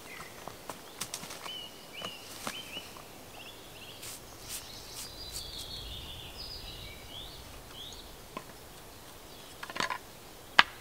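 Gear being handled and unpacked from a canvas rucksack: rustling with light clicks and knocks of wooden items, and a sharp knock near the end as a wooden board is set down. Small birds chirp faintly in the background.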